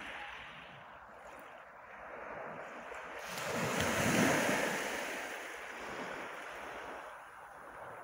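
Small waves breaking on a pebble shore: a steady wash that swells as one wave breaks about halfway through, then fades back as it runs out.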